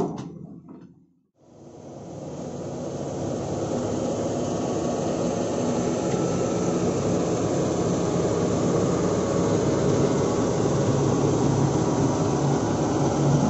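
A brief sharp sound, a second of silence, then a heavy construction machine's engine running steadily, swelling up over the first couple of seconds and holding loud.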